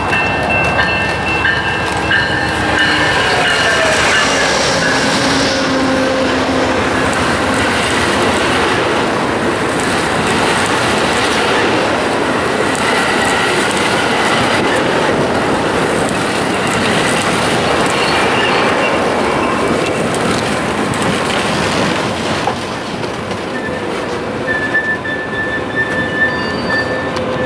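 Amtrak San Joaquin passenger train with bilevel coaches passing at speed: a steady loud rush of wheels on rail with clickety-clack, and thin high squeals from the wheels. A pitched tone drops in the first few seconds as the locomotive goes by, and the rush eases off after about 22 seconds as the last cars pass.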